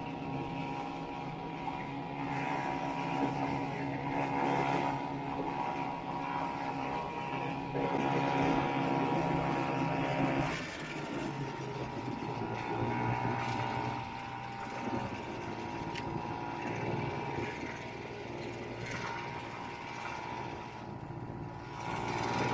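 Vintage Ski-Doo snowmobile's two-stroke engine running at a steady speed while riding, easing off about ten seconds in, then carrying on at a lower, steady pitch.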